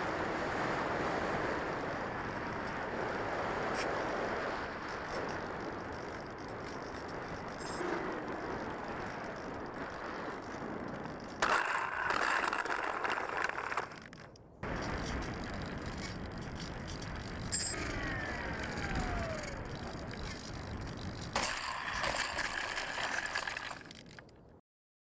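Onboard sound of a Bix3 (Bixler 3) FPV plane in flight: a steady rush of airflow and electric motor noise, with a few brief falling whines. It cuts out briefly about halfway through and again just before the end.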